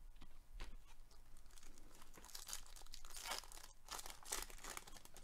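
Foil wrapper of a baseball card pack being torn open and crinkled by gloved hands: faint, irregular crackling, loudest about three to four and a half seconds in.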